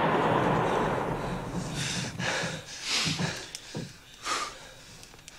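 The echo of heavy machine-gun fire fading away, followed by several short, breathy snorts and gasps.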